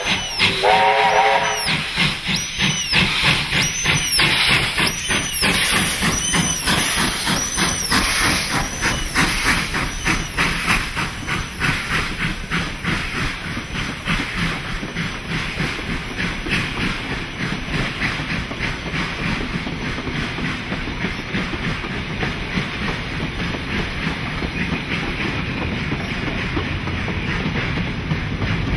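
J class 2-8-0 steam locomotive passing under load: a short steam whistle blast in the first second or so, then loud, rhythmic exhaust beats with steam hiss that fade as it goes by. Carriages and wagons follow, rolling past with the clickety-clack of wheels over rail joints.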